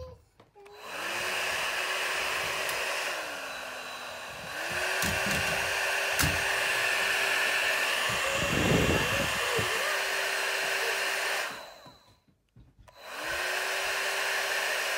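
Babyliss Airstyle 1000 hot air styler switched on and stepped through its settings: the fan motor whirs up to a steady hum, drops to a lower pitch about three seconds in and speeds up again a second later. A brief low rumble comes about nine seconds in. Near the end the styler winds down to a stop, then whirs up again.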